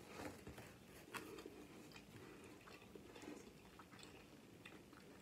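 Faint close-up chewing of folded flour-tortilla pizza, with soft mouth clicks scattered through.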